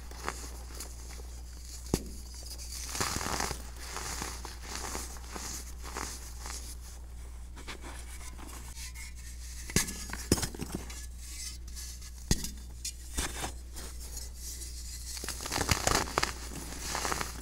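Fingers crushing and breaking chunks of crumbly baking soda: soft powdery crunching and crumbling in clusters, with a few sharp snaps as pieces break off, loudest around ten seconds in. A steady low hum runs underneath.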